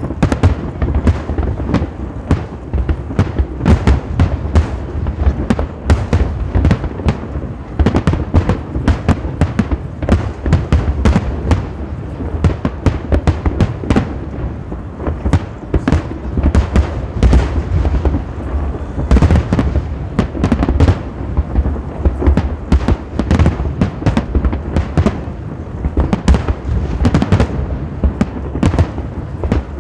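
A fireworks display: many shells bursting in quick succession, several sharp reports a second over deep booms.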